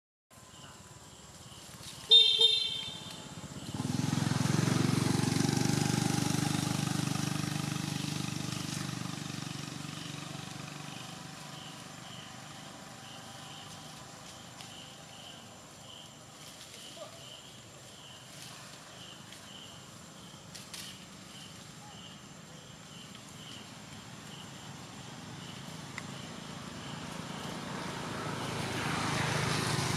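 A short horn toot about two seconds in, then a passing motor vehicle's low engine rumble that swells and slowly fades, with another vehicle building up near the end. A faint chirp repeats about twice a second underneath.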